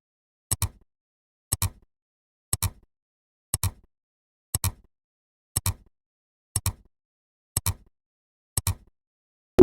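Clock-ticking sound effect: a sharp double click once a second, with silence between the ticks.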